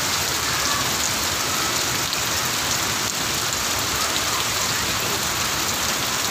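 Heavy rain falling on waterlogged ground, a steady, even rush of rain.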